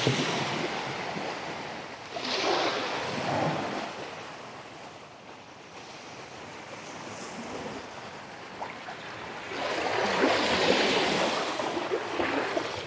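Small waves washing onto a sandy shore of a calm sea, a soft rush that swells about two seconds in, eases off, and swells again near the end.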